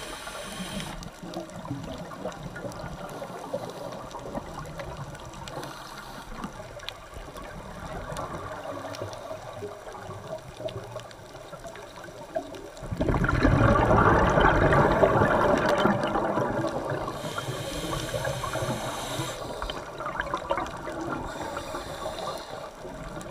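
Underwater recording: a steady muffled water noise, then about halfway through a loud rush of scuba exhaust bubbles lasting about three seconds, with a few faint short hisses at other times.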